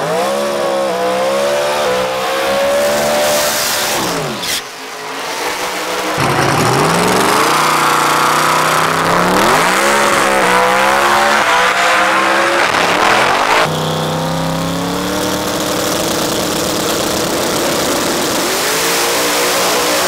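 A 4,000-horsepower drag-racing Corvette's engine revving in repeated rising and falling sweeps, with a long stretch of loud tyre hiss and squeal partway through. The sound changes abruptly, and the engine then runs hard and steady under full power down the strip.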